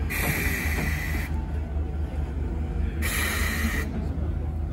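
A steam locomotive run on compressed air, the 9600-type No. 49671, letting off long hissing bursts of air: one of about a second at the start and a shorter one about three seconds in.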